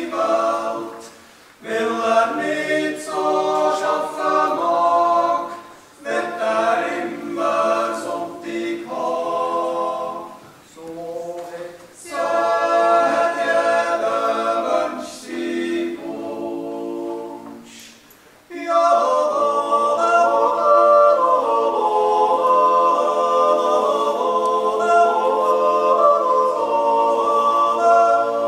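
Six-man Swiss yodel choir singing a Jodellied a cappella in close harmony. Phrases are broken by short pauses for breath until about two-thirds of the way in, then the voices carry on in one long unbroken passage.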